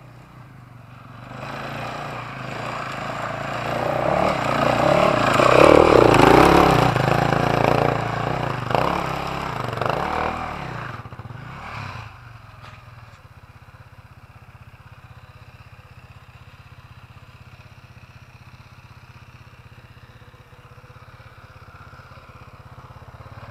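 A pit bike's engine, its pitch gliding up and down with the throttle, grows louder, is loudest about six seconds in, then fades away. About twelve seconds in it changes abruptly to a much quieter dirt bike engine running at low, steady revs.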